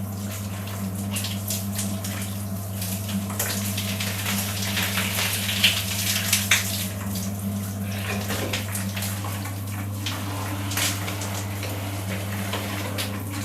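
Water running in a bathroom, splashing irregularly, over a steady low hum.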